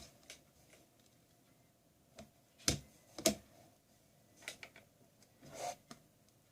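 Irregular small clicks and taps of hard plastic tablet parts and hand tools being handled, the loudest two close together about three seconds in, with a short scrape near the end.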